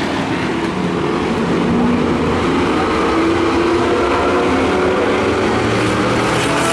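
Stock car engines running on the track, a steady, loud drone of several race cars with their engine notes layered over one another.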